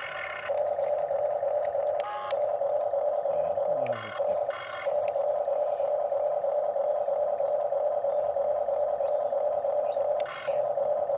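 Huina RC excavator's electric gear motors whining steadily at one pitch, the tone giving way to a brief buzzier sound about four times.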